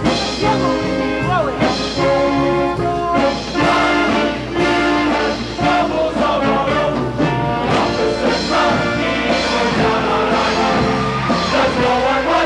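Live show-choir performance: a band with brass playing a show tune, with choir voices in the mix.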